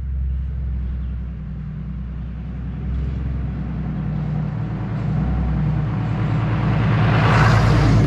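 Pickup truck driving along a gravel road: a steady low engine rumble that grows louder as it approaches, then a rising rush of tyres on gravel as it passes close by, loudest about seven and a half seconds in.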